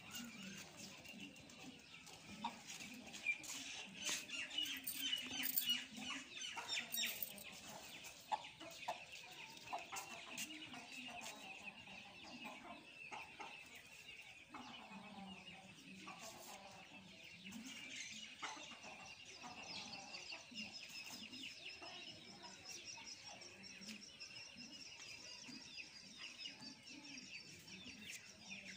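Rooster and hens clucking, with steady high-pitched chirping behind them.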